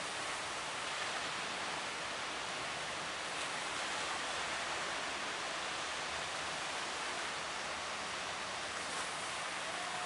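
Surf breaking on the beach: a steady, even rush of water.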